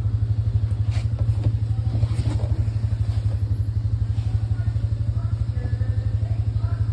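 Kiddie train running: a steady, rapidly pulsing low rumble, with faint voices in the background in the second half.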